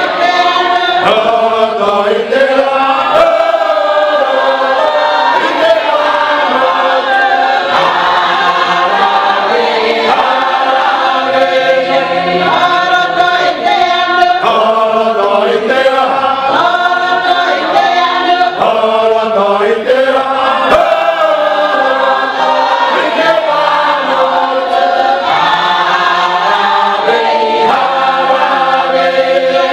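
A group of voices singing together in harmony, unaccompanied.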